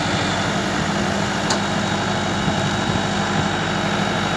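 Mahindra 475 tractor's diesel engine running steadily, powering the hydraulics of a tractor-mounted backhoe as its arm digs. A single short click about one and a half seconds in.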